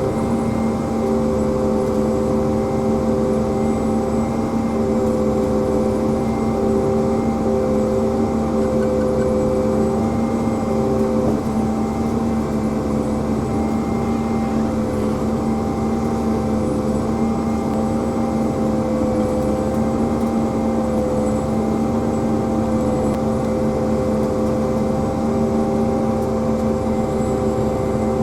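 Pea viner harvester running steadily: a constant machine hum with several steady tones held throughout.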